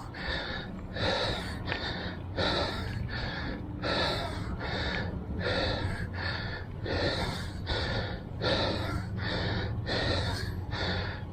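A man breathing hard and fast, out of breath after strenuous mountain biking, in quick even breaths about two a second.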